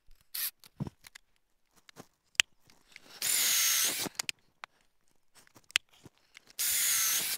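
Cordless drill boring pocket holes into a wooden board held in a pocket-hole jig: two short bursts of drilling, each about a second long, a few seconds apart. Small clicks and knocks of handling come between them.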